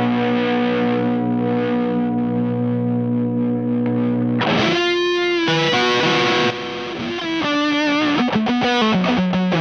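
PRS baritone electric guitar played through the Space Sounds Spacecraft, a Rat-style distortion pedal. A distorted chord rings out for about four seconds, then a fresh strike starts a riff of quickly changing notes.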